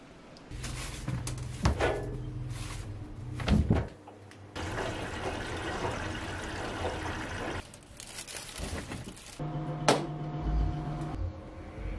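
Front-loading washing machine and clothes dryer at work: a steady motor hum, water swishing in the drum, and a sharp click about ten seconds in.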